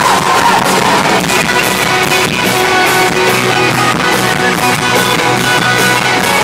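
Live rock band playing loudly with electric guitars, heard from among the concert crowd.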